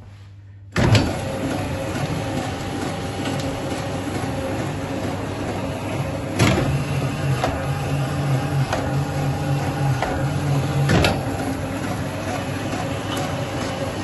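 Pastry sheeter switched on: its electric motor and conveyor belts start suddenly about a second in and run with a steady mechanical hum. A sharp clunk comes about six seconds in and again about eleven seconds in, and the hum changes between them.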